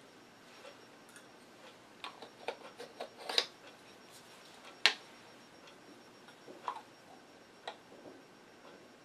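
Light scattered clicks of wooden toothpicks being dropped into a small turned wooden box and the box being handled: a quick run of ticks about two to three seconds in, a sharper click about five seconds in, and a few softer clicks later.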